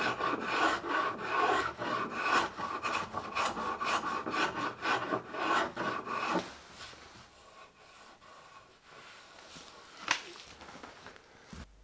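Hand rasp stroking back and forth across the edge of an apple-wood board, about four quick strokes a second. The strokes stop about two-thirds of the way through, and one sharp click follows near the end.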